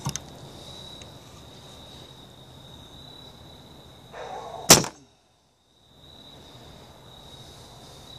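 A compound bow being shot, picked up close by a phone mounted on the bow: a short rustle, then about four and a half seconds in a single sharp, loud snap of the string releasing the arrow.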